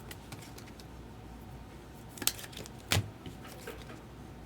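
Trading cards being handled at a table: quiet rustling with two sharp clicks about two and three seconds in.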